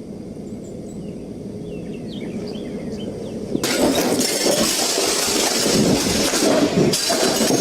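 A deer crashing about inside a house: a sudden burst of loud crashing and clattering, like things breaking, starts about halfway through and keeps going. Faint bird chirps are heard before it.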